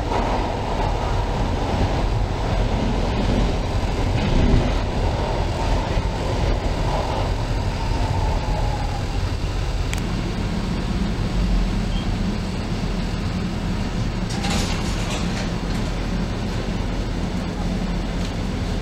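Subway car running noise as the train brakes into a station: a high whine falls in pitch and dies away about nine seconds in as the car stops. A low steady hum of the standing car follows, with a short burst of noise about fifteen seconds in as the doors open.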